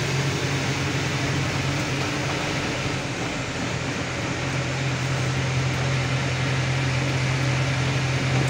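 Truck's diesel engine running with a steady low drone, heard from inside the cab along with road and wind noise as the truck drives.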